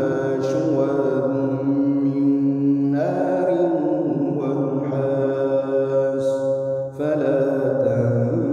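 A male reciter chanting the Quran in a slow, melodic style, drawing out long held tones, with a brief breath near seven seconds before the next phrase.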